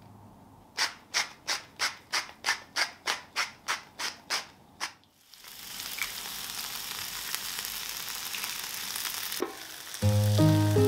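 A salt mill grinding in about a dozen quick even twists, roughly three a second. Then an egg dropped onto the hot oiled plate sizzles steadily, and music comes in near the end.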